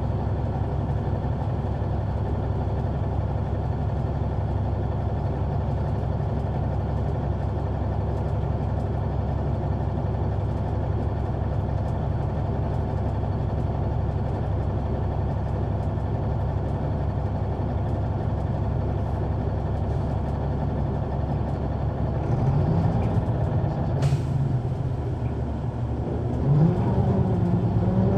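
Caterpillar C9 ACERT diesel engine of an articulated Neoplan AN459 transit bus, heard on board, running with a steady low drone. About 22 seconds in, the engine note rises as the bus accelerates, eases, then rises again near the end, with a single sharp click in between.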